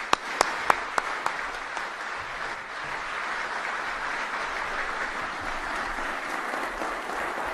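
Audience applauding steadily, with a few loud single claps close to the microphone in the first second and a half.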